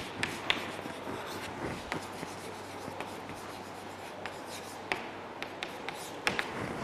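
Chalk writing on a chalkboard: soft scratching with irregular light taps as the letters are formed.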